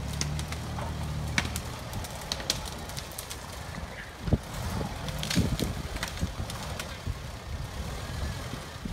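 UAZ-469 off-roader's engine running at low revs as the vehicle crawls through forest brush, steady for the first second or so, then uneven. Scattered cracks and low knocks come from the wheels and body going over branches and rough ground, the loudest about four and five seconds in.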